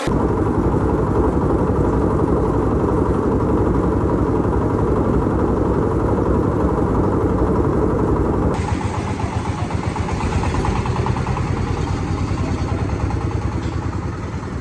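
An engine running steadily with a rapid, even throb. About eight and a half seconds in it changes abruptly to a somewhat quieter, lighter engine sound.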